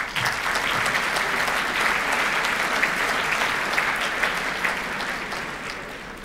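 Audience applauding, starting at once and fading away near the end.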